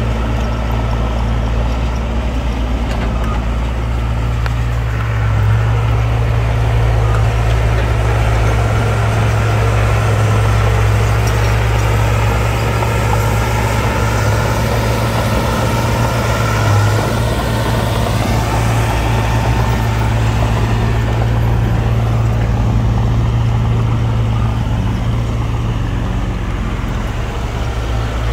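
Diesel engines of heavy earthmoving machines running steadily, a deep low engine drone, with a faint higher whine coming and going in the middle.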